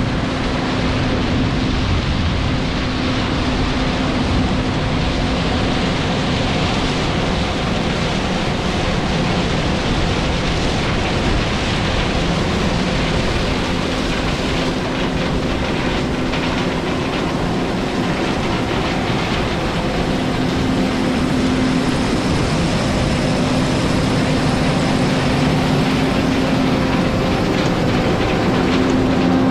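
John Deere 9500 combine's turbocharged six-cylinder diesel running under load while harvesting corn, a dense, steady mechanical rattle with a constant hum underneath.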